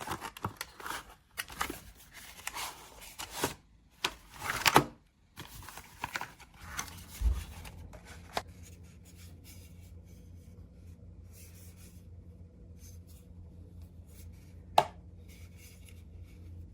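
Hands handling small objects: irregular rustling, scraping and clicking for several seconds, then a faint low hum with a single sharp click near the end.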